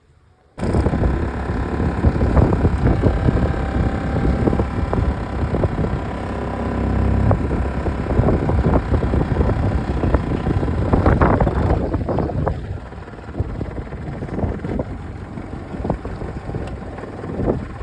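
Loud running machinery with irregular clattering knocks and wind buffeting the microphone, starting suddenly about half a second in.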